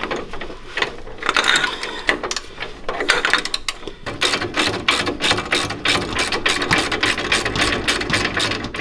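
Hand socket ratchet clicking fast and evenly as it turns a nut on a pickup's front suspension. The clicks start lightly about a second in and run in a steady, dense stream from about three seconds on.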